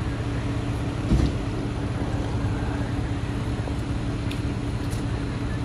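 Fire engine ladder truck's diesel engine idling with a steady low hum, with a brief louder thump about a second in.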